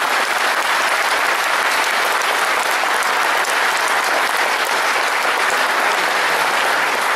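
Large audience applauding steadily: dense, even clapping with no pauses.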